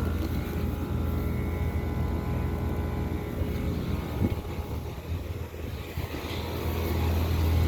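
Outdoor air-conditioner condensing units running: a steady low compressor hum with fan noise, dipping a little about halfway through and growing louder near the end.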